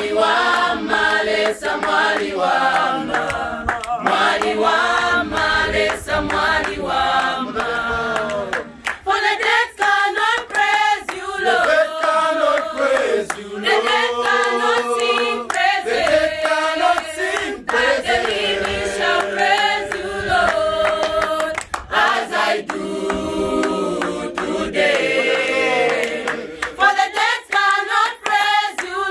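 Mixed church choir of women's and men's voices singing a gospel song together, unaccompanied.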